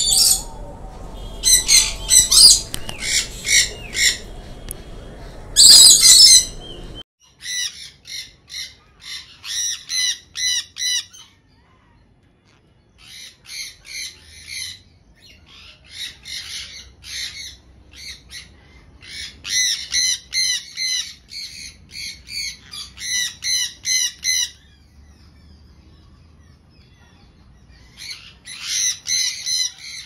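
Conures squawking: runs of short, shrill calls, about four a second, in bouts of a few seconds with short pauses between. The first few seconds are louder, harsher screeches over a low rumble that stops abruptly.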